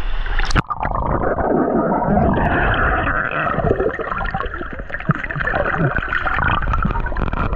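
Underwater sound picked up by a camera under the water: a splash about half a second in, then muffled bubbling, gurgling and sloshing with many small crackles, the higher sounds cut off until the camera comes back up near the end.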